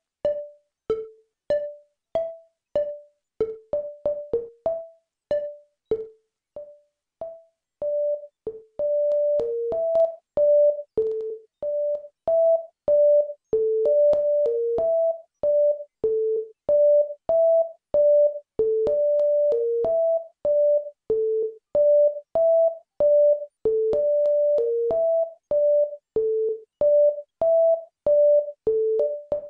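Hard-Boiled Wonderland monophonic additive synth plugin playing a looping single-note melody that moves among a few close pitches. At first the notes are short, clicky and wood-block-like. From about eight seconds in they ring out longer and sound closer to a pure tone as the decay is raised.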